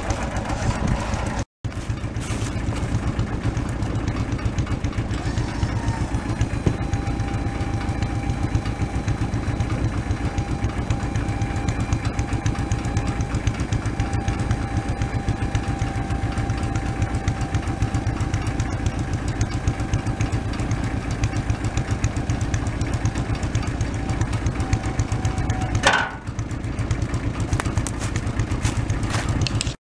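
Small engine of a homemade four-wheel utility vehicle running steadily at idle, with a faint steady whine through the middle. A single knock sounds near the end.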